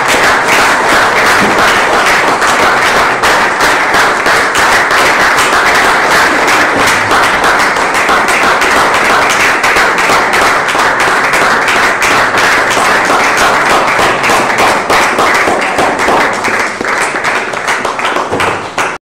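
Audience applauding: a dense, steady mass of hand claps that thins slightly in the last few seconds and then stops abruptly.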